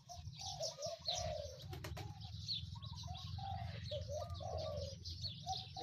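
Doves cooing over and over, with fainter small-bird chirps higher up and a low steady hum underneath.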